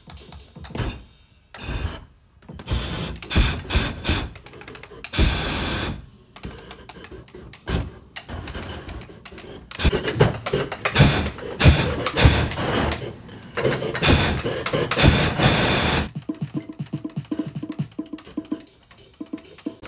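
Drumsticks tapping in quick runs on small pumpkins fitted with piezo drum triggers, each hit setting off a whoosh of propane flame from flame-effect units. Longer flame bursts come about five seconds in and again around fourteen to sixteen seconds.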